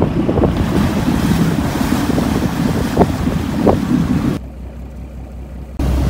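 Fishing boat's diesel engine running as the boat gets under way, with water churning along the hull and wind on the microphone. About four seconds in the noise drops to a low engine hum, then comes back loud near the end with a regular low chugging.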